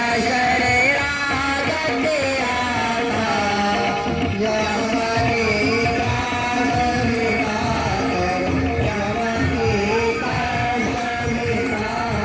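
Devotional aarti singing: a voice sings a gliding melody over music with a steady drone and drum accompaniment, without a break.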